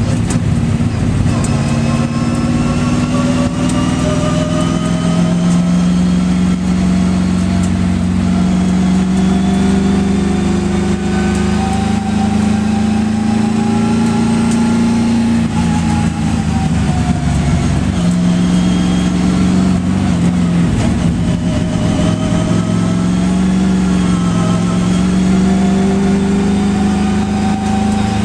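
Race car engine heard from inside the cabin while lapping: its pitch climbs steadily under acceleration, drops off about halfway through, then climbs again.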